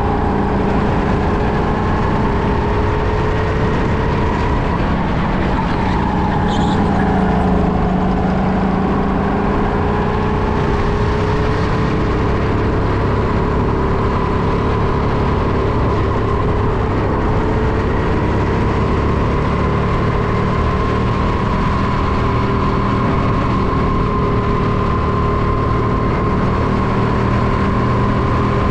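Go-kart engine running at speed on a kart track, heard from the driver's helmet. Its pitch drifts gently up and down as the kart slows for corners and picks up on straights.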